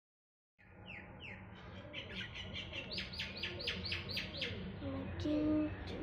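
Budgerigar chirping: a run of short, high, falling chirps that quickens to about four a second, with a lower, louder call near the end.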